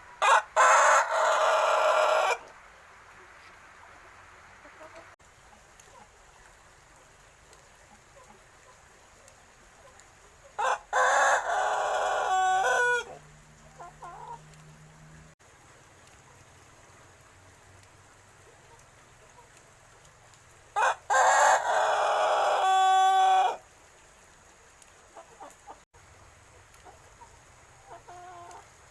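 Young Pelung rooster, about six months old, crowing three times, roughly ten seconds apart, each crow about two seconds long and ending in a few stepped falling notes. It is a juvenile just learning to crow, not yet the very long crow of a trained adult Pelung.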